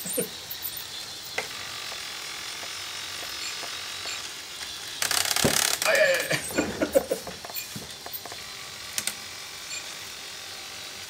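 Lego Mindstorms robot dog's old Lego motors and plastic gear trains whirring and clicking, creaky, as it moves its head and legs, with a louder, rougher stretch of about two seconds midway.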